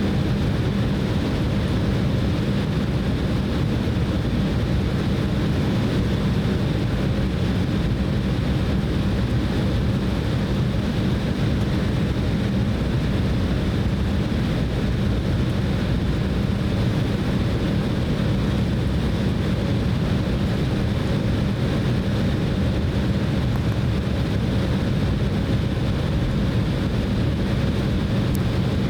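Steady cabin drone inside an Embraer E190 jetliner, its twin turbofan engines running at an even setting with a low hum and a faint high whine.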